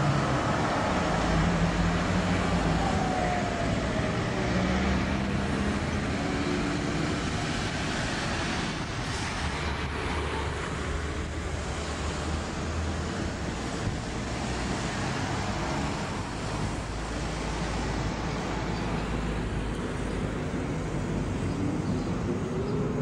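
Steady city traffic noise from passing cars, with an electric tram's motors humming and whining as it runs by during the first several seconds. A rising whine comes near the end.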